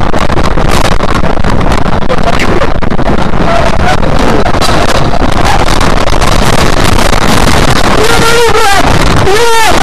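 Loud, distorted rush of road and wind noise inside a moving vehicle, picked up by a dashcam microphone, as the vehicle runs off the highway into the grass. Near the end a person cries out twice.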